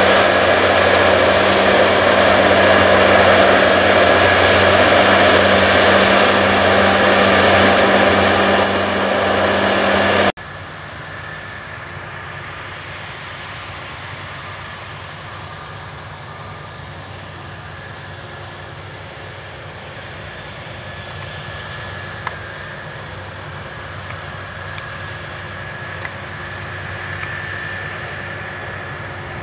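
John Deere X9 combine harvester running as it cuts wheat, a loud steady machine drone with a held whine. About ten seconds in the sound drops abruptly to a quieter, more distant steady drone of the combine with a tractor and grain cart alongside.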